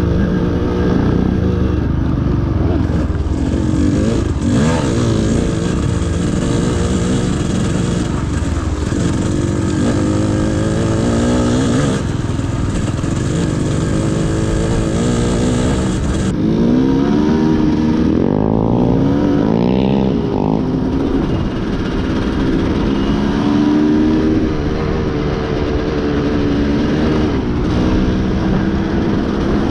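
Off-road motorcycle engine running under way, its pitch rising and falling again and again as the throttle opens and closes, with steady wind noise over it.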